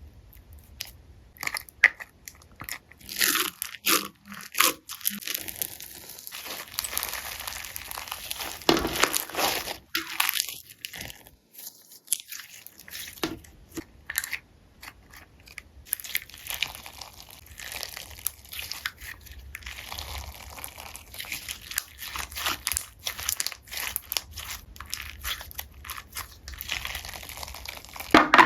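Slime being worked by hand or stirred, giving a long run of dense crackling, crunching clicks and sticky pops.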